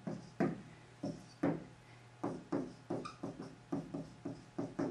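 Marker writing on a whiteboard: a run of short strokes and taps, a few per second, as letters and symbols are drawn, with a brief pause a little after one and a half seconds in. A faint steady hum lies underneath.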